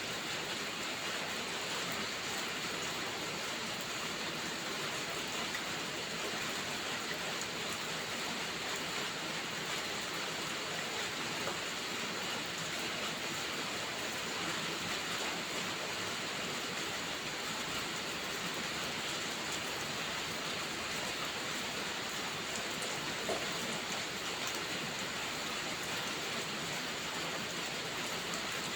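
Steady rain falling, an even hiss with no let-up, and a single faint tick late on.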